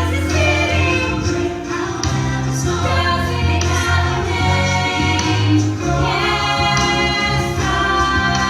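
Music with a group of voices singing together over an instrumental accompaniment.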